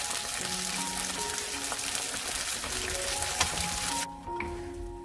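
Starch-coated pieces of semi-dried pollock (kodari) deep-frying in hot oil in a wok: a dense crackling sizzle that cuts off suddenly about four seconds in, followed by a few faint clicks of a wooden spatula stirring the glazed pieces. Light background music plays under it.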